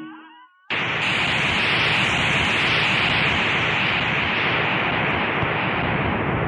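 The last notes of a rock song die away, then a little under a second in a loud, steady hiss of noise cuts in abruptly and carries on, its top end slowly dulling: a noise sound effect at the close of the track.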